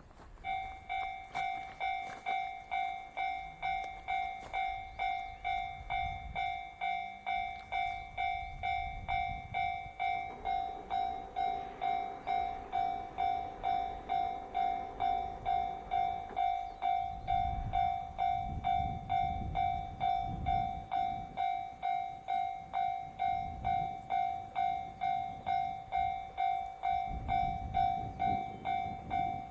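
Japanese railroad crossing's electronic warning bell ringing in a steady, even rhythm of about one and a half rings a second, the crossing alarm for an approaching train. Low rumbling rises and falls under it now and then.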